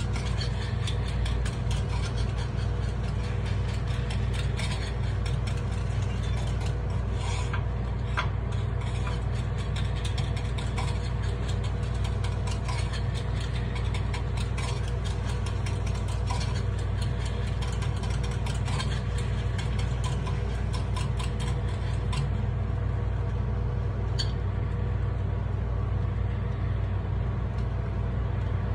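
Metal takoyaki picks clicking and scraping rapidly against the holes of a takoyaki grill as the balls are turned, over a steady low hum. The clicking thins out after about twenty seconds.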